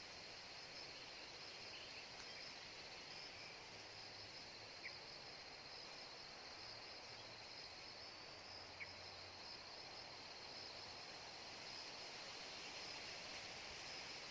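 Faint, steady insect chorus of crickets or cicadas, a high pulsing buzz, with two brief high chirps about a third of the way in and again past the middle.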